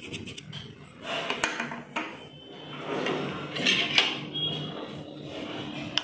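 A steel spoon and a plate being handled: scraping and clinking on the plate, with a few sharp knocks.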